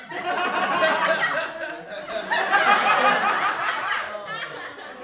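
A group of children laughing together, strongest in the first four seconds and tailing off near the end.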